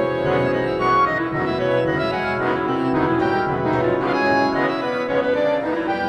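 Computer-rendered (MIDI) contemporary wind-ensemble music: sampled wind instruments sounding held, overlapping chords that shift from note to note.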